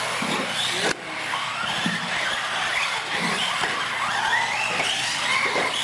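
Several radio-controlled UTV trucks racing on a smooth concrete floor. Their electric motors whine, rising and falling in pitch with the throttle, with tyres squealing. An abrupt cut comes about a second in.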